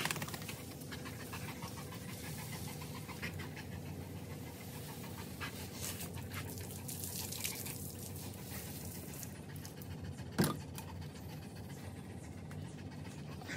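Rottweiler panting fast and steadily, with a single sharp knock about ten seconds in.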